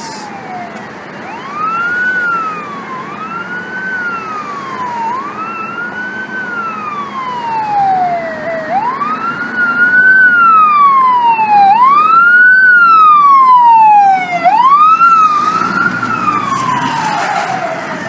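Fire engine siren wailing in repeated cycles, each a quick rise in pitch and a slow fall, restarted at uneven intervals. It grows louder as the truck approaches, loudest a little past the middle.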